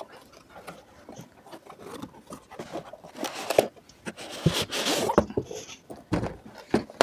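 Cardboard packaging being handled: box flaps clicking and rustling, then a longer stretch of scraping as a padded fabric carry case is pulled out of the box, and a soft thump about six seconds in as the case is set down on a wooden table.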